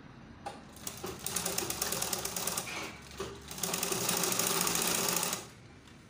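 Sewing machine stitching through the gathered fabric and elastic of a skirt waistband: a fast, even clatter of the needle in two runs of about two seconds each, with a short pause between.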